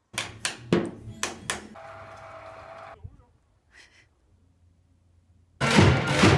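A quick run of sharp knocks, then a steady hum for about a second and a stretch of near silence. About a second before the end comes the loud din of a crowd in an indoor sports arena.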